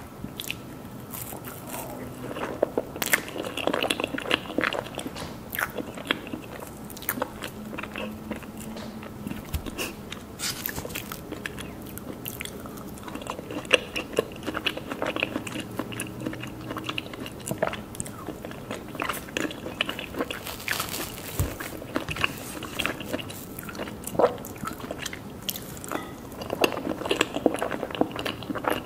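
Mousse cake being bitten and chewed, with many small, irregular mouth clicks throughout.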